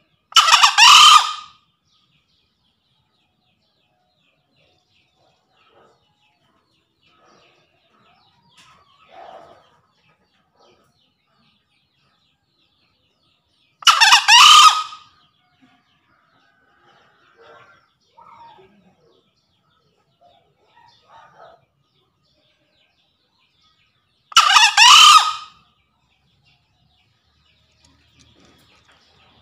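Male green junglefowl crowing three times, each a short hoarse crow of about a second, spread well apart. It is a challenge call to a rival male.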